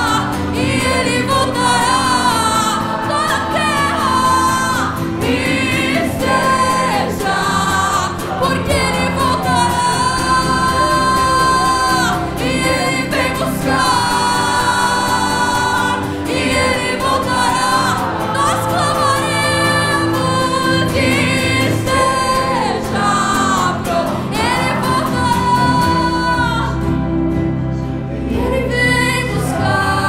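Live Christian worship music: a woman singing long, held notes over acoustic guitar and keyboard.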